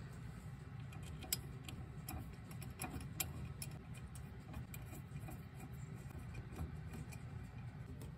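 Faint, irregular light clicks of small metal parts and a hand tool being handled as a furnace gas valve assembly is put back together, over a low steady hum.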